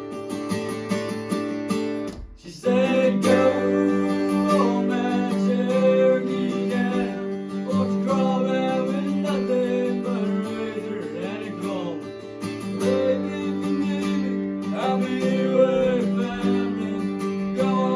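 Acoustic guitar strumming chords in a country song, with a gliding melody line above it; the strumming drops out briefly a little over two seconds in and comes back with a strong strum.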